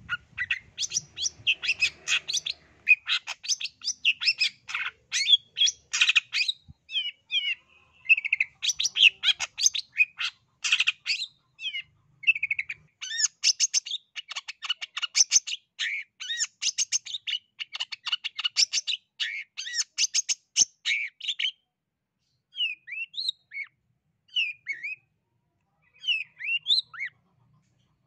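Long-tailed shrike (cendet, East Java type) in full song: a loud, fast chattering stream of rapid high notes with short pauses, which thins after about 21 seconds into short separate calls.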